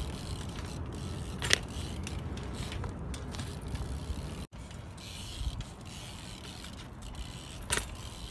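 BMX bike being ridden on pavement: tyres rolling and scraping with hub and drivetrain ticking, under a steady low rumble. Two sharp clicks, one about a second and a half in and one near the end.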